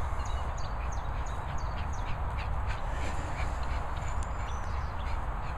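Flock of domestic guinea fowl calling: short, high calls repeated about twice a second, over a steady low rumble.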